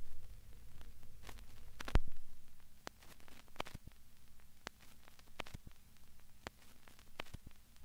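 Static crackle: sparse, irregular clicks and pops over a low steady hum, with the loudest click about two seconds in.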